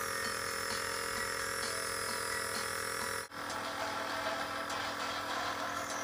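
Compressor nebulizer running: a steady electric buzz from its small air-compressor motor, with a brief dropout just over three seconds in.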